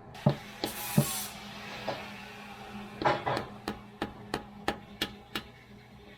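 Light metal taps and clicks from a hand tool working against the engine block, settling into a run of about three taps a second in the second half, over a steady low hum. The tool is pushing on the upper half of the old rear main seal to feed it out around the crankshaft.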